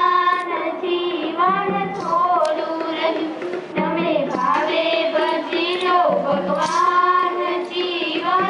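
Four girls singing a bhajan together into a microphone, in long held sung lines whose pitch bends and slides, with short breaks for breath between phrases.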